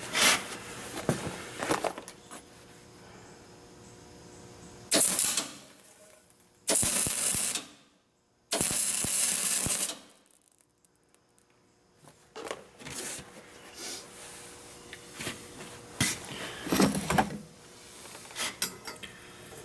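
MIG welder arcing in a short burst and then two runs of about a second and a half each, with a brief silent gap between them, while welding a nut onto a broken-off stainless bolt in a cast iron exhaust manifold. Light metal clinks from handling the gun and parts come before and after the welds.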